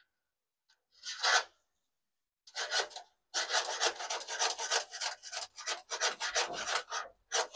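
A steel brake cable being worked back and forth inside its conduit tube in the backbone of a 1949 Volkswagen Beetle floor pan, a rasping scrape. There is one short stroke about a second in, then rapid, near-continuous rasping strokes from about two and a half seconds in. The drag is put down to a buildup of old grease in the tube.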